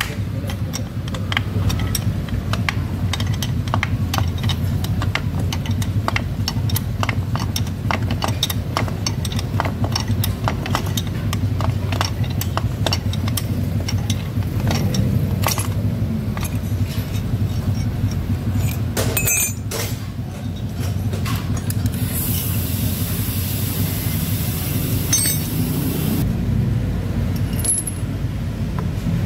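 Repeated metallic clicks and clinks of a wrench working a threaded bearing puller on a scooter's aluminium gear case, over a steady low hum. A hiss sounds for a few seconds near the end.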